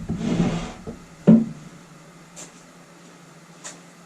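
A heavy bench vise being handled on a wooden workbench: a short scraping rush, then one heavy knock about a second in, followed by a couple of faint ticks.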